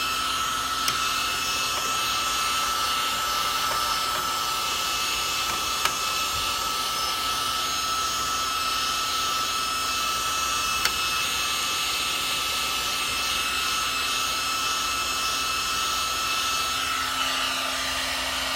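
A small electric blower motor runs steadily, a hiss of moving air with a constant high whine. There are a few faint clicks, and the sound's lower part thins out near the end.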